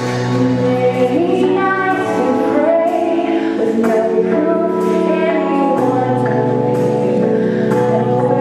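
Live music: a woman singing into a microphone over sustained instrumental notes, with the low accompanying note changing about six seconds in.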